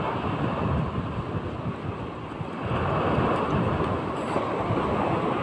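Sea surf rushing and breaking in big waves, with wind buffeting the microphone; the rush swells louder about halfway through.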